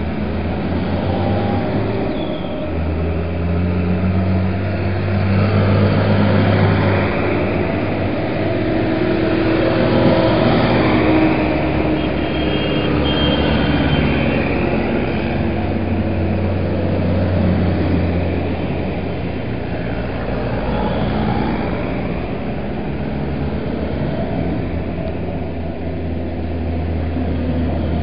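Diesel engines of several tractors driving past one after another in a convoy. The sound swells as each one approaches and passes, then eases off.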